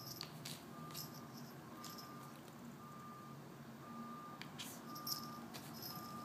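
A vehicle's reversing alarm beeping steadily about once a second over a low engine hum, with scattered scuffs and clicks from a puppy rolling and wriggling on a carpet.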